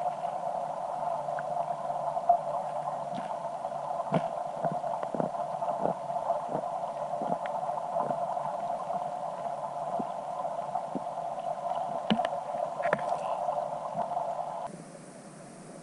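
Steady, muffled underwater noise picked up by a submerged camera, with faint clicks about one every half second between four and seven seconds in and a few more near the end. The noise drops suddenly shortly before the end.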